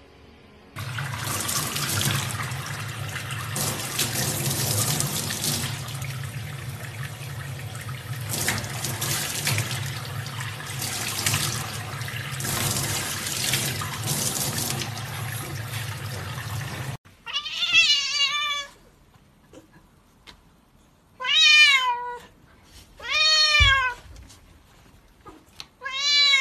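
Tap water running steadily into a stainless steel sink, a continuous rush with a low hum under it, cutting off after about seventeen seconds. Then a cat gives four loud, drawn-out meows, each rising and then falling in pitch.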